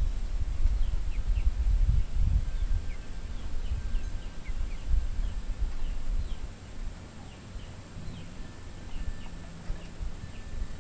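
Chickens in the coop peeping, with many short, high chirps that drop in pitch, scattered irregularly. Under them runs an uneven low rumble on the microphone, which is the loudest part.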